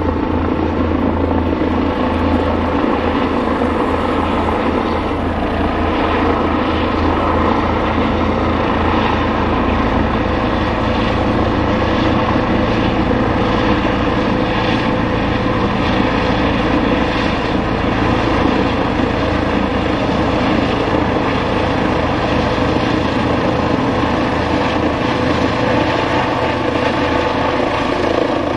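Medical helicopter coming in to land: a loud, steady rotor beat with a fast low flutter under a steady engine whine.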